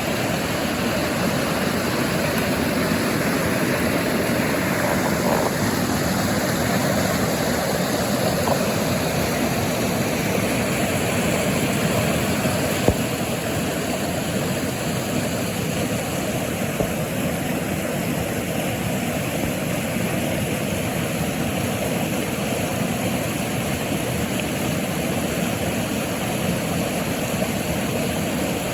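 Steady rushing noise with no clear pitch, with one brief sharp click about halfway through.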